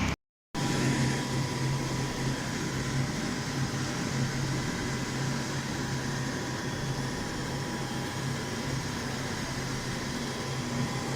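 Factory machinery running steadily, a constant mechanical hum with a faint high whine over it. The sound cuts out completely for a moment just after the start, then resumes unchanged.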